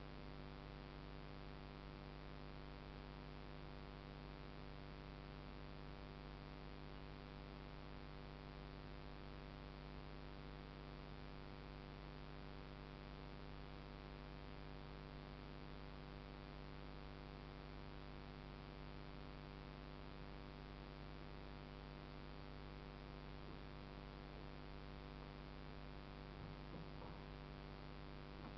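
Faint, steady electrical hum with a light hiss, unchanging throughout.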